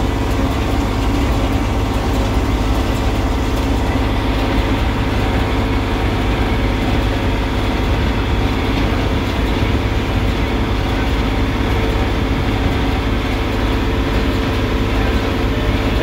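Tractor engine running steadily under load, heard from inside the cab, while it pulls a 327 small square baler through a hay windrow.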